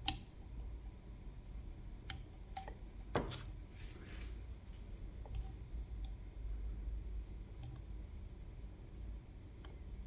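Scattered small metal clicks and taps, with a sharp click at the start and another about three seconds in followed by a short scrape: tools working on a CISA AP3 lock.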